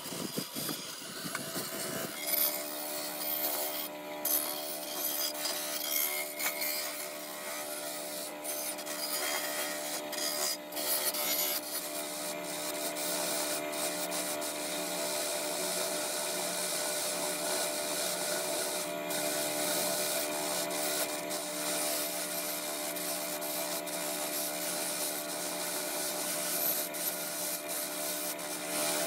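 Steady abrasive rubbing, as of sanding or filing, over a constant humming tone that settles in about two seconds in.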